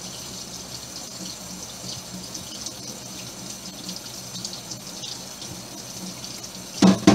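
Kitchen faucet running steadily into a stainless steel sink, with water splashing as a makeup brush is rubbed against a glass dish under the stream. A voice cuts in right at the end.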